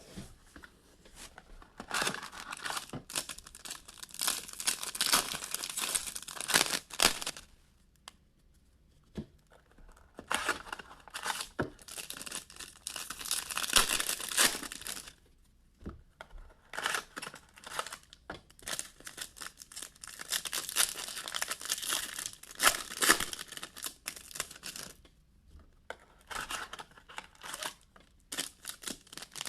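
Plastic wrapping crinkling and tearing in several stretches of a few seconds each, with short pauses between, as trading-card box packaging is handled and opened.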